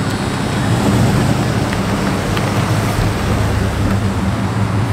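Pickup truck's engine and exhaust running with a steady low drone as it drives slowly past, with wind noise on the microphone over it.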